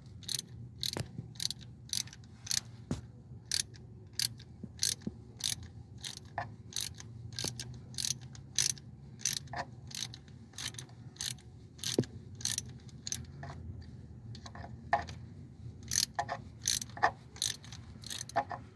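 A ratchet clicking in a steady, even rhythm, about two to three clicks a second, while a 2013 Dodge Avenger 2.4 four-cylinder's timing chain tensioner is worked on.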